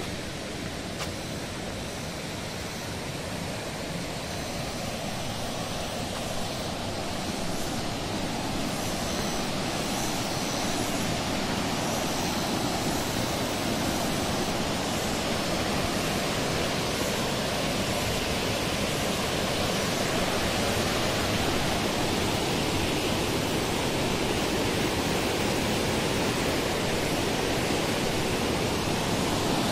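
Rushing water of a waterfall and rocky river, a steady wash of noise growing gradually louder.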